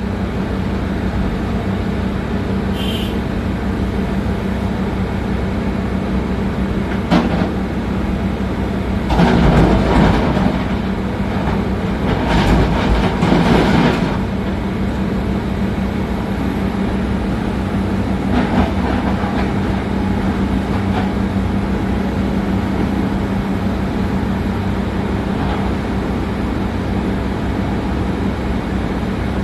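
Diesel engine of a Komatsu PC200-7 excavator running steadily, with louder, rougher stretches about nine seconds in and again from about twelve to fourteen seconds in.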